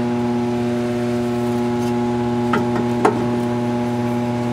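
A steady hum throughout, with two light metallic clicks about two and a half and three seconds in as the new wheel hub bearing is worked into place against the steering knuckle.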